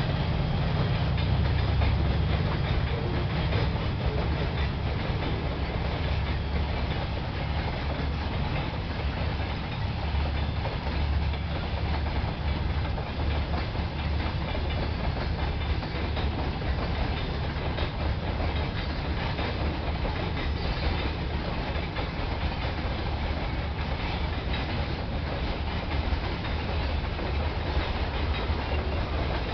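2TE10M diesel locomotives running under load with their 10D100 two-stroke opposed-piston diesels as they pull a train away. A steady deep rumble, with wheels clattering over the rail joints.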